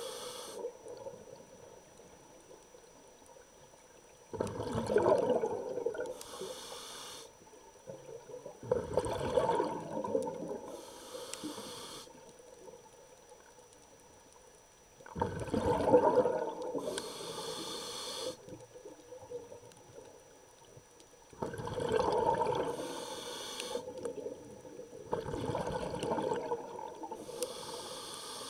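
Scuba diver breathing through a regulator underwater, about five breath cycles roughly every five to six seconds. Each cycle is a louder, deeper burst followed by a shorter, higher hiss.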